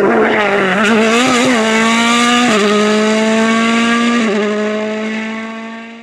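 Formula 1 car's engine accelerating through the gears: the pitch wavers at first, then climbs steadily and drops sharply at two upshifts, about two and a half and four seconds in, before fading out near the end.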